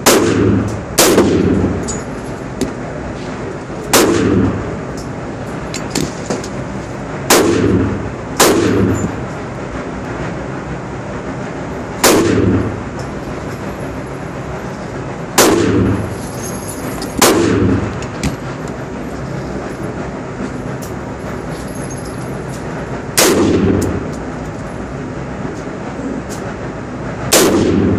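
AR-15 rifle in .223 firing single shots at an irregular pace, about ten in all, a few seconds apart and sometimes two in quick succession. Each shot is a sharp crack with a ringing echo off the walls of an indoor range, over a steady background noise.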